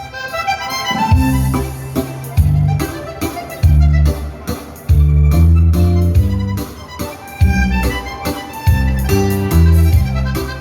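Live dance-hall band music led by accordion, with a heavy bass line moving in a steady dance rhythm.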